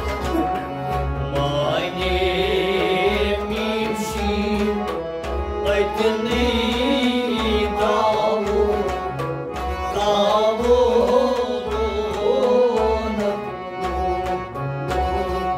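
Kashmiri folk song: a singer's voice winding through a melody over a steady held drone, with a drum beating an even rhythm underneath.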